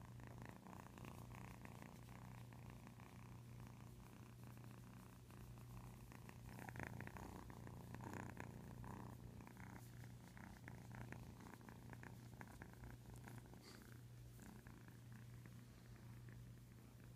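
Ten-week-old kitten purring softly and steadily.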